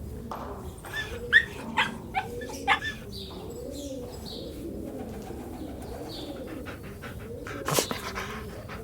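Puppies whimpering and yelping. Several short, high yips come between about one and three seconds in, and another near the end, over steady low whining.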